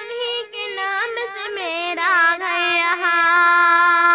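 A young female voice singing an Urdu naat, drawing out a long ornamented phrase: the pitch wavers and steps down, then settles into a long held note for the second half.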